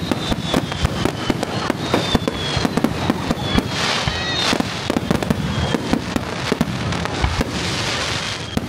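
Fireworks display: a dense run of aerial shells launching and bursting, with sharp bangs several times a second and a faint whistle that slides slowly down in pitch.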